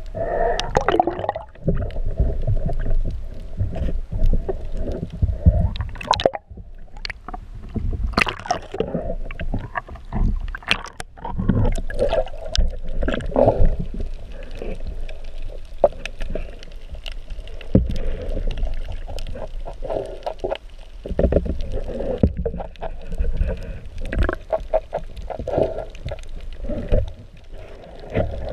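Underwater noise picked up through an action camera's housing: low rumbling water movement and gurgling, broken by many irregular clicks and knocks.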